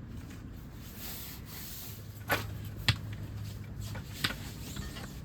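Three short, sharp knocks a little over a second apart, the middle one the sharpest, over a faint low hum.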